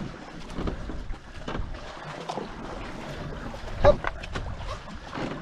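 Two-person marathon racing canoe under way: irregular paddle strokes and water splashing along the hull. One sharp, louder splash or knock comes about four seconds in.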